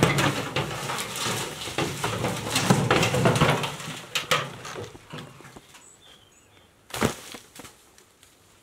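A steel oil drum rolling over rough dirt ground: a rumbling clatter for about four seconds that fades away, then a single sharp knock about seven seconds in. A few faint bird chirps come in the quieter stretch.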